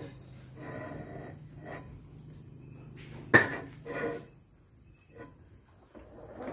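A hammer knocks on a cylinder head to seat it on the lathe. One sharp, loud knock comes a little over three seconds in, with lighter knocks and clatter around it. Crickets chirp steadily behind.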